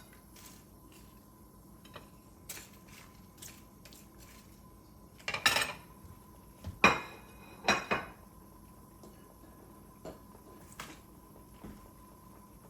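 Cooking utensils clinking and scraping against a pot and dish as cabbage goes into the pot: scattered light clinks, with three louder clatters in the middle.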